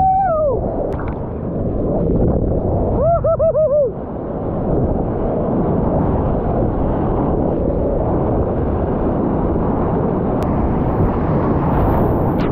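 Breaking surf crashing over a sea kayak and its camera: a loud, continuous rush of churning whitewater. Short pitched whoops come at the start and again, four in quick succession, about three seconds in.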